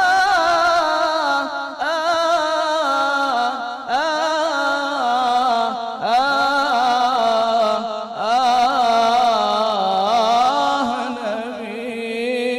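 Background music: an Arabic devotional song in praise of the Prophet (sholawat), its melody gliding and ornamented between the sung lines.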